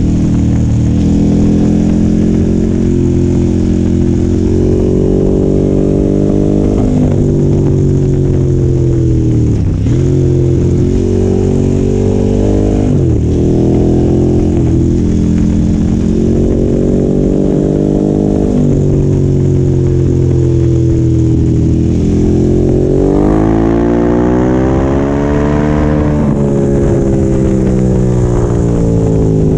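KTM 1290 Super Adventure R's V-twin engine and exhaust under way, its pitch rising and falling with the throttle through bends. There are several brief drops in revs, then a long climb to high revs a little over twenty seconds in.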